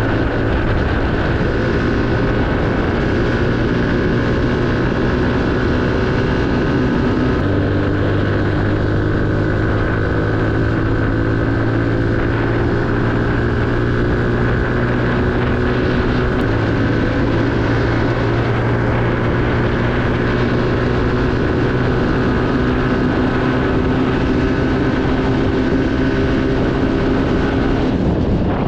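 Motorcycle engine running under way, with wind and road noise. The engine note climbs slowly and steps down twice, about seven and sixteen seconds in.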